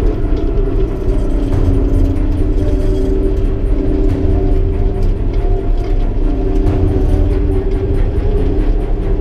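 Yenisei 1200 combine harvester's diesel engine running steadily while driving along a bumpy dirt track, heard inside the cab, with scattered rattles and knocks from the machine.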